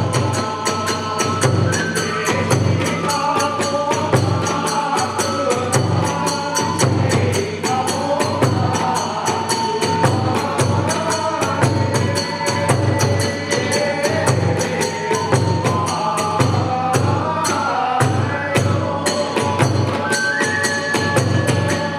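Hiroshima kagura hayashi ensemble playing: a large drum beating steadily, small hand cymbals clashing along with it, and a bamboo flute playing a wavering, sliding melody.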